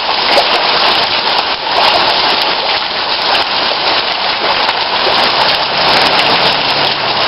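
Heavy rain pouring steadily onto a flooded street.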